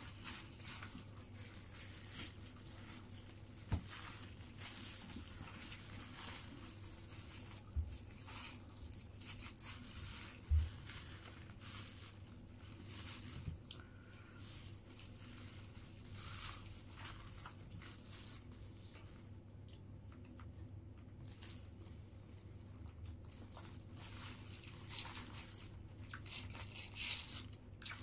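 Close-up eating sounds: chewing, with tearing and crunching of fried chicken pulled apart by a plastic-gloved hand, and rustling of the glove and paper wrapping. A few low thumps, the loudest about ten seconds in.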